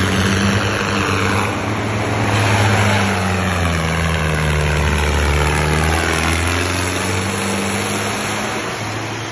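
Mahindra Arjun 605 tractor's diesel engine running loud under way, its note dipping in pitch through the middle and climbing again as it is revved.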